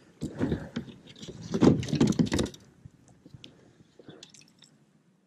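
Kayak paddle dipping and splashing in the water for about two seconds, with water dripping off the blade, followed by faint small clicks of handling gear.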